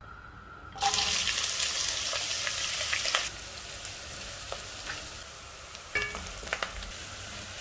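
Sliced red onions sizzling in hot cooking oil in a pot. The sizzle starts suddenly and loudly about a second in, as the onions meet the oil, and settles to a steadier, quieter frying after about three seconds. Near the end a wooden spoon stirs them, knocking against the pot a few times.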